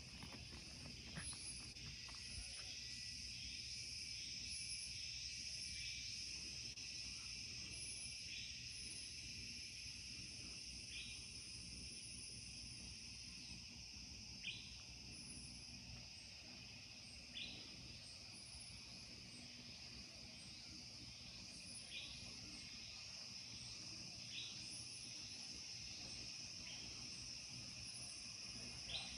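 Faint, steady high-pitched chorus of rainforest insects, with a short chirp every two to three seconds.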